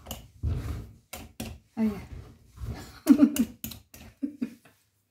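A Y-shaped vegetable peeler scraping strips of tough skin off a hard pumpkin in a series of quick strokes. A short "ay" comes about two seconds in, and brief voiced grunts about three seconds in, the loudest sound here. The sound cuts off abruptly a little before the end.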